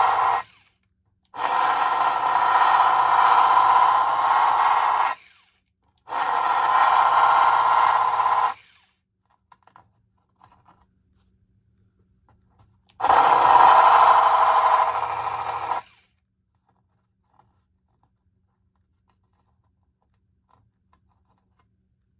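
Small electric sander grinding down a plastic base to level it, switched on and off in four runs of a few seconds each.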